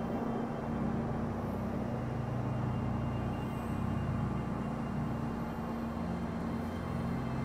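Steady city traffic hum with a low, even drone beneath it.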